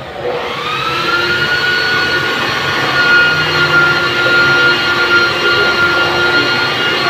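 Handheld electric power tool starting up: its motor whine rises over about a second and then runs steadily at a high pitch.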